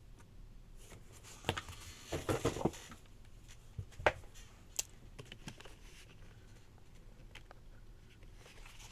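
Keyboard packaging being handled: a brief stretch of rustling about a second and a half in, then a few scattered light knocks and clicks as items are taken out of the box.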